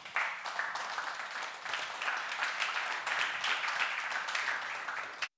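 Audience applauding: many hands clapping in a dense, continuous spatter that cuts off abruptly near the end.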